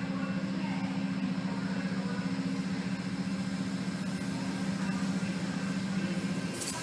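Engine idling with a steady low drone that stops near the end, followed by a brief sharp click.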